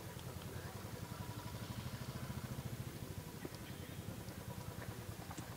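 Faint engine idling, a low, fast, even pulsing.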